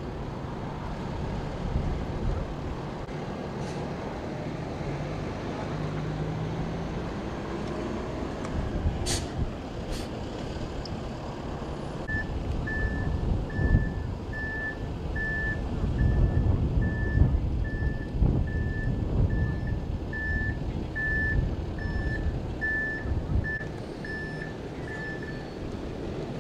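Steady low rumble of idling emergency vehicles, with wind on the microphone. About halfway through, a vehicle's back-up alarm starts beeping at one steady pitch, about one and a half beeps a second, for some thirteen seconds.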